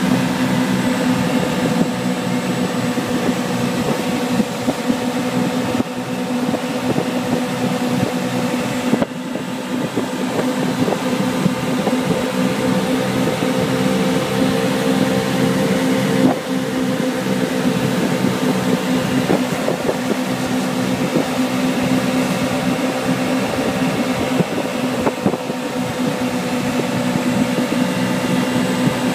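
Wakeboard tow boat's engine running steadily at towing speed, with water rushing in the churning wake and wind on the moving boat.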